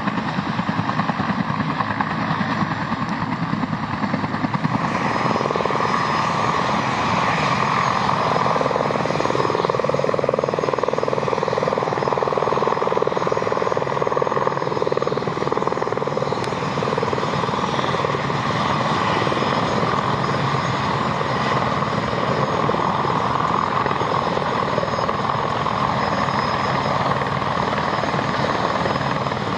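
Helicopter rotor and turbine noise throughout. First comes a Bell 214B turning its rotor on the ground. After a change about five seconds in, it is an Aerospatiale AS350 Squirrel hovering low overhead, with a steady rotor chop.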